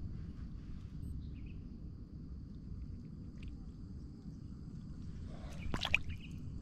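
A hand splashing briefly in a shallow muddy water hole, handling a small caught fish, about six seconds in. Under it runs a steady high-pitched insect drone and a low background rumble.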